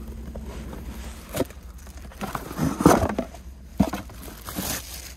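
A cardboard box being slit open with a pocket knife and unpacked: cardboard scraping and rustling, plastic wrap crinkling, and a few sharp knocks, the loudest about three seconds in.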